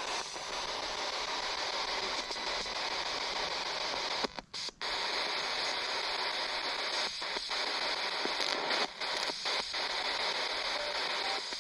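Spirit box radio hissing with steady static as it sweeps, cut by a few brief sudden dropouts around the middle and later on.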